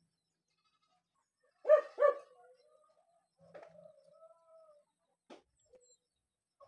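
An animal calls twice in quick succession, loud and sharp, then gives a fainter, drawn-out wavering call.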